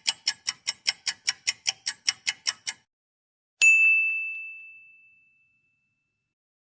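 Quick, even ticking, about five ticks a second for about three seconds, then a single bright bell ding that rings out and fades over a second and a half.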